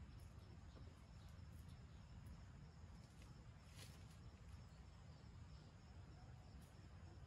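Near silence: faint outdoor ambience with a low rumble, a faint steady insect drone, and a few faint high ticks, the clearest a little under four seconds in.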